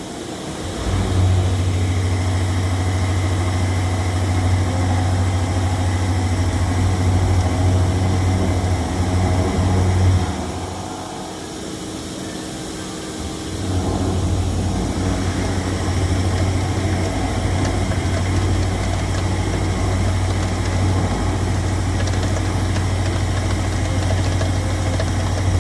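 CNC milling machine face-milling a part's top surface with a freshly re-inserted face mill at 800 rpm and 1 mm depth of cut: a steady low cutting hum from the inserts hitting the work. The hum drops away for about three seconds around the middle as the cutter leaves the cut, then resumes.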